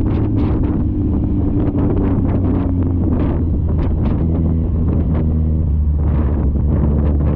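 Wind buffeting on a GoPro Hero 9 action camera's microphone while riding: a heavy, steady low rumble broken by irregular gusty rushes, with a steady low hum underneath.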